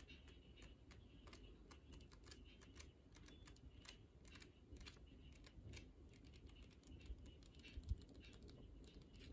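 Pages of a small paperback photo book flicked through with the thumb: a long run of faint, quick paper ticks, with one low thump a little before the end.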